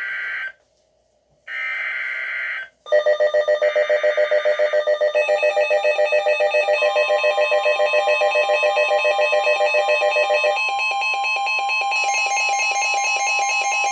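Emergency Alert System signalling on NOAA Weather Radio for a severe thunderstorm warning. It opens with the harsh buzzing data bursts of the SAME header, two of them about a second apart. Then comes a loud, rapidly pulsing electronic warning alarm, joined about seven seconds in by a steady high tone, the weather radio warning alarm tone.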